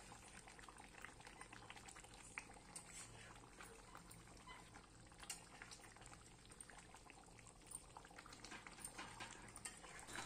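Faint bubbling of a thick fish masala curry simmering in an open pan, with small irregular pops throughout.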